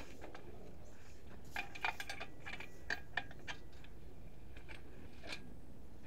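Light metallic clicks and clinks from the swing-bolt wing-nut clamps of a stainless steel manway lid being loosened, a scattering of them in the first half and one more near the end, over a faint steady low hum.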